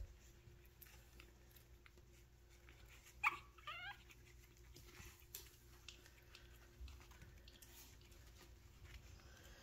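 A Chihuahua puppy gives one short, high yelp about three seconds in, its pitch wavering; otherwise near silence with a few faint clicks.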